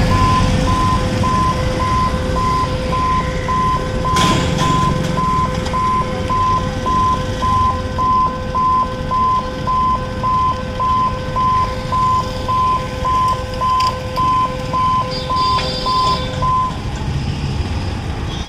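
Level-crossing warning beeper sounding as the boom barriers come down, about one and a half electronic beeps a second, over the engines of motorcycles and an autorickshaw waiting at the gate. The beeping stops about 16 seconds in.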